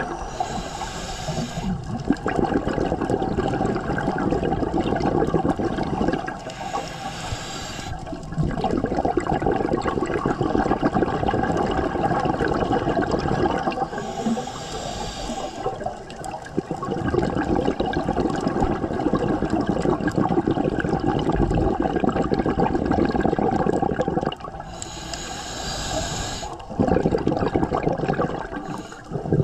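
Scuba regulator breathing heard underwater. Four short hissing inhalations through the regulator each give way to a longer, louder rush of exhaled bubbles.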